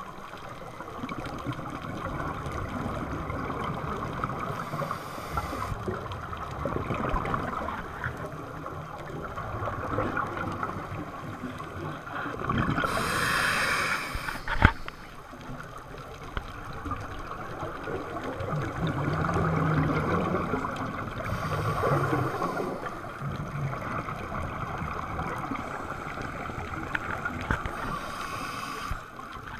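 Underwater sound through a diving camera's housing: a diver's scuba regulator exhaling, each breath a hissing burst of bubbles, four times at about eight-second intervals, over steady muffled water noise.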